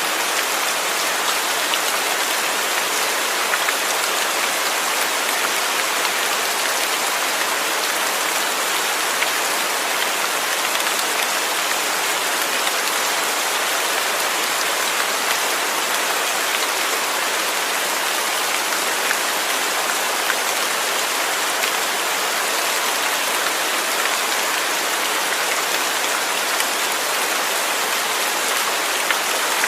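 Steady rain falling, a dense even patter of drops with no let-up.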